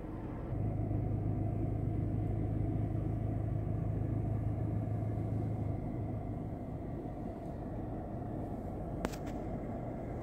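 Steady low rumble of a car driving, with a low hum through the first half that then fades. A single brief click about nine seconds in.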